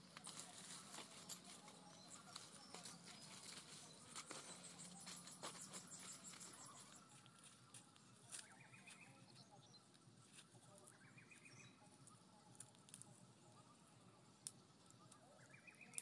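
Faint scattered clicks and rustling, with an animal calling three times a few seconds apart in the background, each call about a second long.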